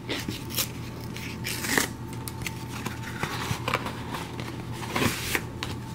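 A brown cardboard mailer is torn open by its tear strip and handled. The paperboard rustles and crackles, with irregular sharp snaps, the loudest about two seconds in and again near the end.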